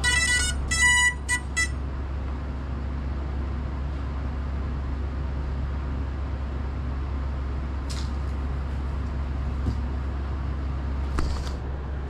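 FPV quadcopter resting on the floor: a quick series of electronic beeps in the first two seconds, then a steady low hum with a couple of faint clicks.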